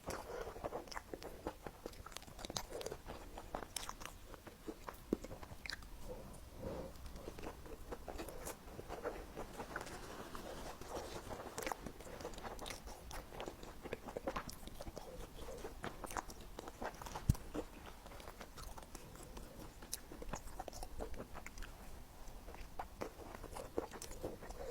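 A person biting and chewing food close to the microphone: a steady run of soft crunches and small wet mouth clicks.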